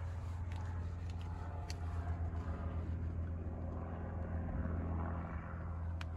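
A steady, low mechanical hum that does not change, with a few faint light clicks.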